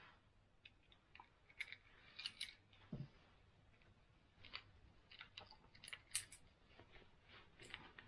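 Near silence broken by faint, scattered small clicks and ticks as a crimp tool die and its tie wire are handled and twisted together by hand.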